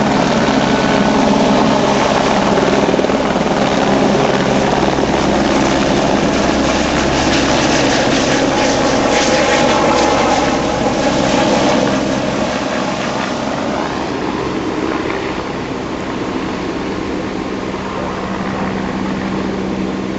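Helicopter running overhead: a steady rotor and engine noise that is loud at first and grows fainter after about twelve seconds.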